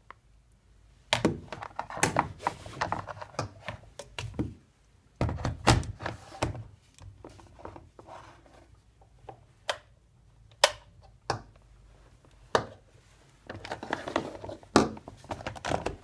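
Handling knocks, thunks and clicks from a Philips HD9329 electric kettle and its plastic power base being turned over, moved and set down. They come in three clusters: about a second in, around five to seven seconds in, and near the end, with single clicks in between.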